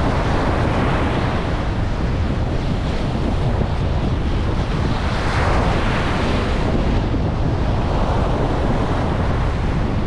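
Ocean surf breaking and washing up a sandy beach, swelling with each wave, with wind buffeting the microphone in a steady low rumble.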